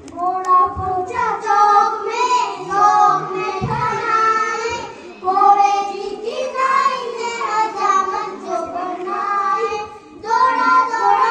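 Children singing a song together, with short breaks between phrases.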